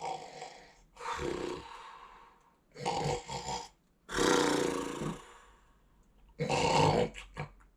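A man snoring: about five breathy snores, each roughly a second long with short pauses between, ending in a few short snorts.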